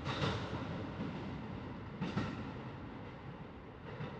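A train rumbling somewhere in the tunnel, its sound echoing around the concrete underground platform, with a few soft clanks about two seconds apart.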